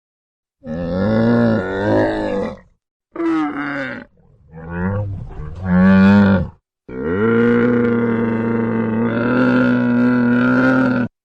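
A large animal calling four times in long, pitched calls, the last held steady for about four seconds.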